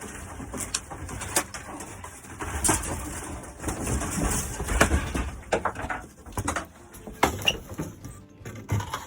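Old RV ceiling being torn out by hand: irregular cracking, knocking and scraping as panels and framing are pulled and broken loose.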